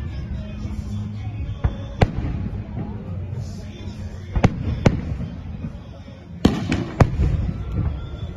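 Fireworks exploding overhead in a series of sharp bangs, about seven in all, with a quick cluster about six and a half to seven seconds in.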